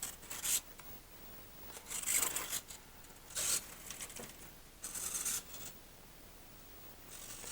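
Five short, hissy scratching sounds about a second apart, from the small foam RC jet being handled and tilted while its gyro moves the control surfaces.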